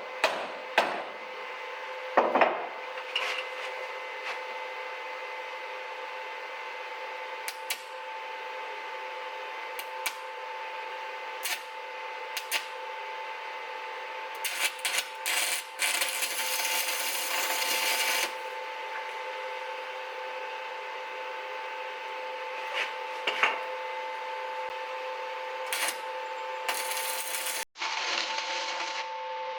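Welding spots onto a scooter clutch spider to fix its loose rivets: a string of short bursts of arc noise, with a longer burst of about two seconds around the middle and another near the end. Clinks of metal handling and a steady hum run underneath.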